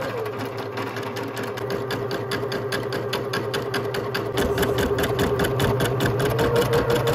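Home embroidery machine stitching out a letter: a steady motor hum under a rapid, even clatter of the needle, growing louder about halfway through.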